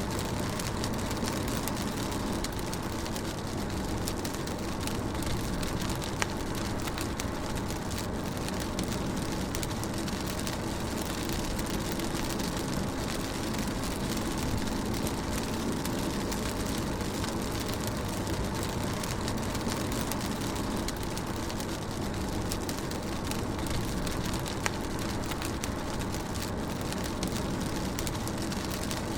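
Rain falling on a car while it drives, heard from inside the cabin: a steady hiss of rain over a low, even road and engine rumble, with a couple of sharper drop ticks.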